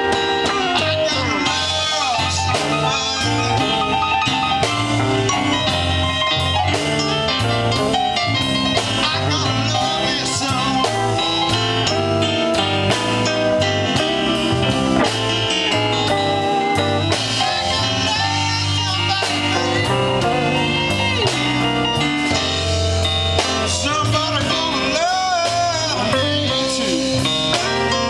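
A live blues band playing: electric bass, electric keyboard, drum kit and guitar together, with a steady beat.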